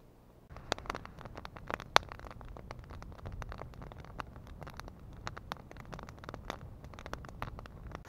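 Campfire of dry branches burning, crackling with many sharp, irregular pops over a low rumble of flame, starting suddenly about half a second in.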